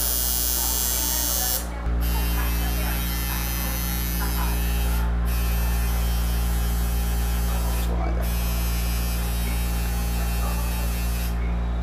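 Electric tattoo machine buzzing steadily as the needle works into the skin.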